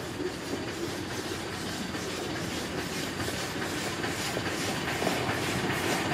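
Miniature steam locomotive on a 10¼-inch-gauge line approaching with its train: regular exhaust chuffs over the rumble and clatter of wheels on rail, growing louder near the end.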